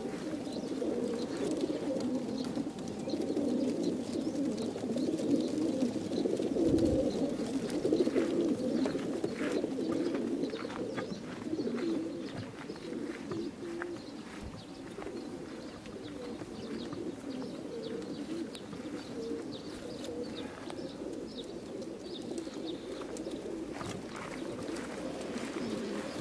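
A large flock of racing pigeons cooing together inside stacked transport crates, a steady dense chorus with scattered clicks and scratches.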